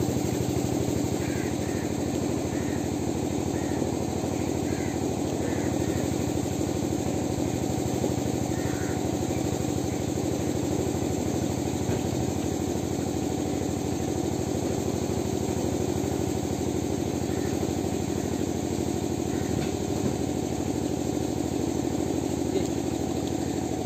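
A small engine running steadily at a constant speed, an even drone with no change in pitch.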